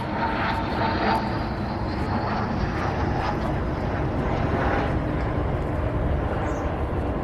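A motor engine running steadily, with a faint high whine that slowly rises in pitch.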